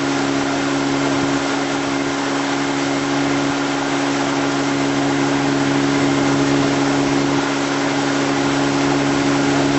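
Towboat engine running at a steady cruising speed, its pitch unchanging, with a constant rush of water and wind underneath.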